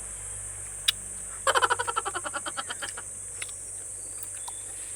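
An animal call: a quick run of about fifteen chirps over a second and a half, fading as it goes. It is preceded by a single click, over a steady high insect drone.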